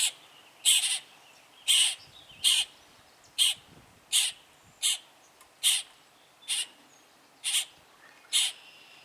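Nestling birds giving harsh, raspy begging calls, short and repeated steadily about once every second.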